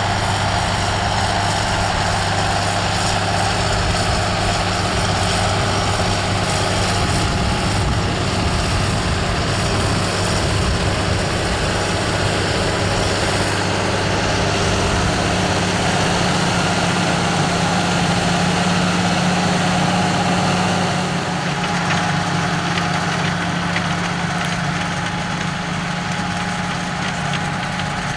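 John Deere 6920 tractor's six-cylinder diesel engine running steadily under load while pulling a power harrow through the soil. It drops a little in loudness about three quarters of the way through as the tractor moves away.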